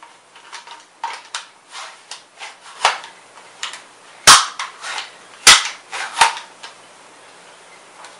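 Well R6E M4A1 airsoft electric gun: a series of light clicks, then two loud sharp shots a little over a second apart, a smaller sharp one soon after, and a few fading clicks.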